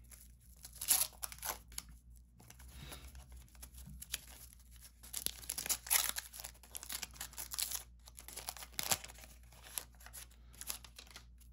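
A 1991 Fleer basketball card pack's paper wrapper being torn open and crinkled by hand, in irregular ripping and rustling bursts, loudest about a second in and again around six seconds in.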